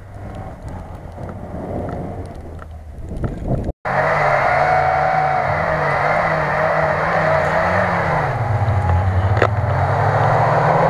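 Lada Niva engines driving over snow: at first fainter and mixed with wind noise, growing louder; after a sudden cut about four seconds in, a louder engine running with its pitch rising and falling as it is revved, dropping and then climbing again near the end.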